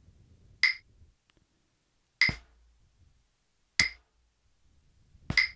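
Wooden drumsticks striking a Reflexx practice pad in slow alternating single strokes, one stroke per quarter note at 38 beats a minute: four short, sharp taps evenly spaced about a second and a half apart.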